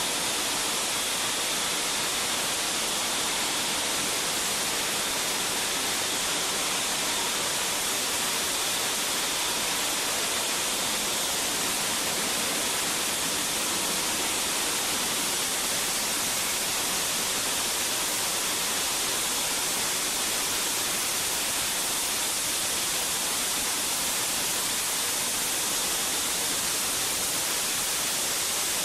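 Large diesel fuel fire burning, fed by diesel spraying from pressurized piping: a steady, even hiss, strongest in the high end.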